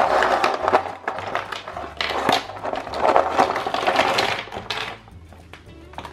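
Hard plastic Play-Doh letter and number stampers rattling and clattering as they are tipped out of the box onto a table, with one sharp click about two seconds in; the clatter dies down about five seconds in.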